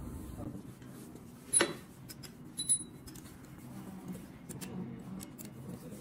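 Metal clicks and taps from the e-bike's handlebar stem and front fork being worked by hand to line the bars up straight: one sharp clack, a second click with a brief metallic ring about a second later, then a few light ticks.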